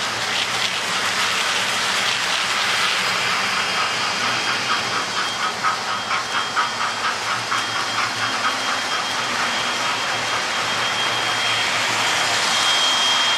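Model trains running on a layout: a steady whirr of small motors and wheels on the track, with a quick run of clicks, about four or five a second, from wheels crossing rail joints for a few seconds in the middle, and a thin high whine.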